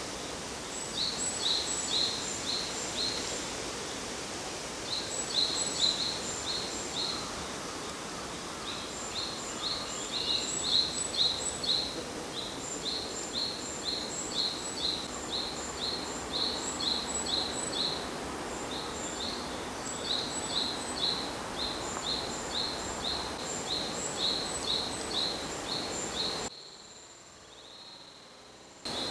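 Short, high chirps repeated in quick runs of several a second over steady outdoor background noise. Near the end everything drops much quieter for about two seconds.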